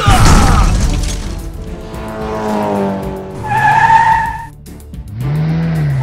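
Cartoon sound effects of a race car skidding out of control: a loud hit at the start, then a high tyre squeal twice, over background music.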